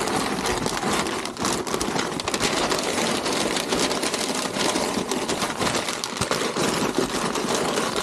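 Brown kraft packing paper being crumpled and stuffed by hand into a cardboard box: a dense, continuous crinkling and crackling.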